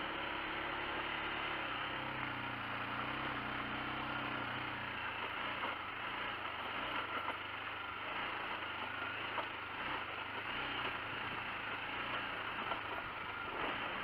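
Adventure motorcycle engine running while riding a rough dirt track, its pitch rising and falling over the first few seconds, under a steady hiss of wind on the helmet microphone. A few sharp ticks come later on.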